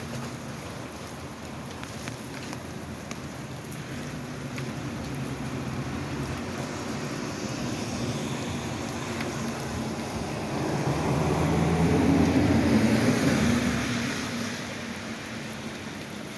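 Steady rain falling, with a vehicle driving past on the wet road: it grows louder, is loudest about twelve seconds in, then fades away.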